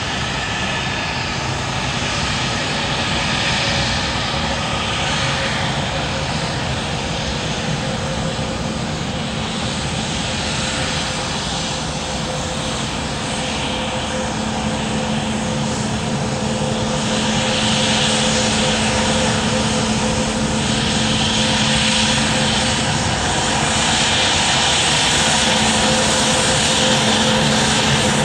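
Sukhoi Superjet 100 jet airliner rolling along the runway, its two SaM146 turbofan engines running steadily with a hum and a whine. The sound grows louder in the second half as the jet comes closer.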